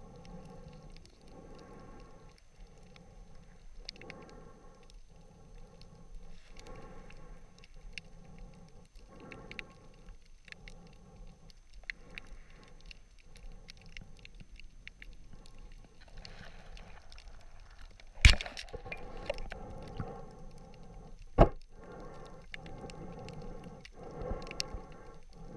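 Muffled underwater noise picked up by an action camera in its waterproof housing as a spearfisher swims. It swells and dips at about one pulse a second, and two loud, sharp knocks come in the last third.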